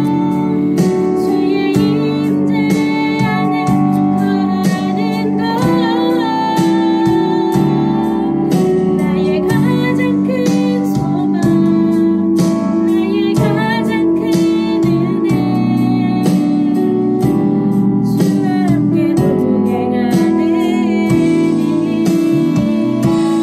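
A voice singing a slow song with vibrato over an instrumental accompaniment.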